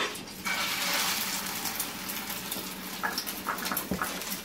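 Egg-coated shami kabab going into hot oil in a frying pan: the oil starts sizzling about half a second in, then eases a little, with scattered pops and crackles.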